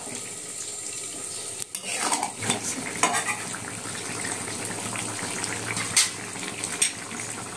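Metal spatula stirring thick vegetable gravy in a metal pan, with scattered clinks and scrapes against the pan over a steady simmering sizzle. The flour and sugar just added are being stirred in to thicken the shukto gravy.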